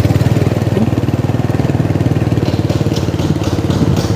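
A small engine running steadily, with fast, even pulsing.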